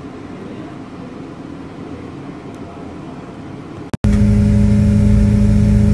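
Steady low outdoor rumble. About four seconds in, after a brief break, a much louder steady mechanical hum with a fixed low pitch takes over: a vehicle engine idling close by.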